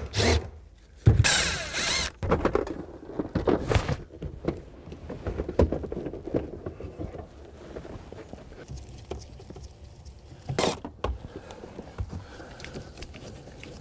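A cordless power driver runs in two short bursts, backing out the center console's fasteners. Then come scattered plastic knocks, clicks and rustling as the console is worked loose and lifted out.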